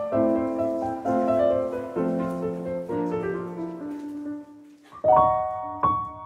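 Background piano music: a gentle melody ends on a low note about four seconds in, and after a brief pause a new piece starts with bright repeated notes.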